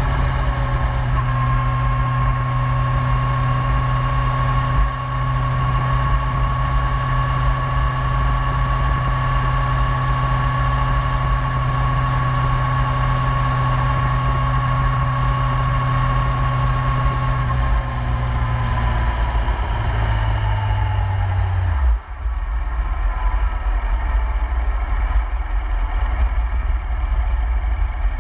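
Yamaha YZF-R1 inline-four engine running at a steady highway cruise, with a high whine over the exhaust note and wind rush. About two thirds of the way in the note sags, then near 22 s it breaks off briefly and gives way to a lower, rougher rumble without the whine.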